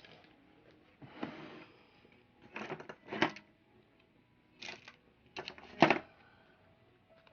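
Small hard tools and parts clicking and clattering as they are handled and sorted through, in several short bursts, the loudest a sharp clatter about six seconds in.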